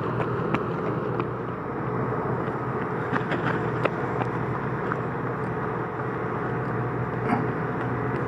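Heavy diesel machinery running steadily, the excavators of a river dredging site, with scattered metallic knocks and clanks.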